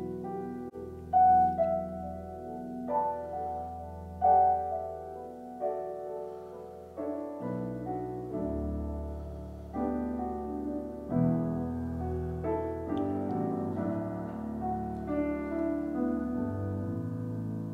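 Piano music: slow single notes and chords, each struck and left to ring and fade.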